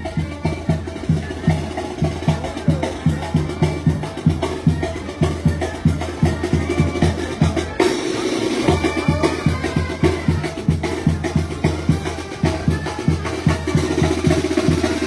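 Live Sinaloan banda music: a brass band with a low bass line and drums keeping a steady, regular beat.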